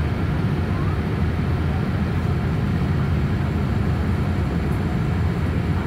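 Steady low rumble of a Boeing 787-8 in flight, heard inside the passenger cabin: engine noise and rushing air, with no change in level.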